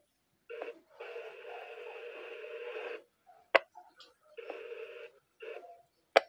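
Handheld VHF radio receiving a weak analog repeater signal: bursts of scratchy, broken audio, the longest about two seconds, with sharp clicks as the squelch opens and closes. The signal is too weak to be understood, a dead spot for the analog system.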